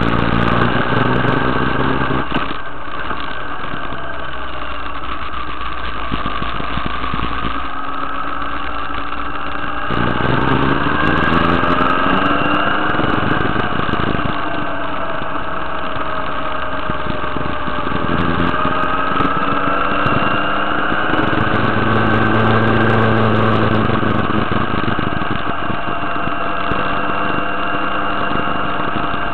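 Motorcycle engine running under way on a winding road, its pitch climbing twice and falling back as the throttle is opened and eased off through the bends.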